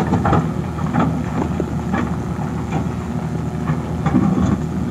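Excavator's diesel engine running steadily, with a few short knocks.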